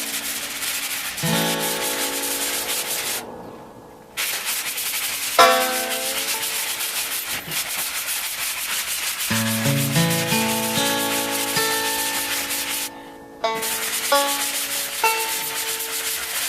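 Sanding sponge block rubbing on a painted plaster wall: a steady gritty hiss that breaks off twice for about a second. Background music with held instrumental notes plays along with it.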